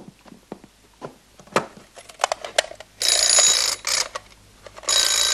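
Wall-mounted crank telephone bell ringing in two loud bursts, the first about a second long a few seconds in, the second starting near the end, as the handle is cranked to call the exchange. Before that, a few light knocks and clicks.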